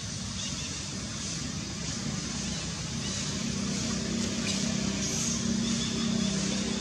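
A motor engine hums steadily and grows slowly louder, over a steady hiss of outdoor noise.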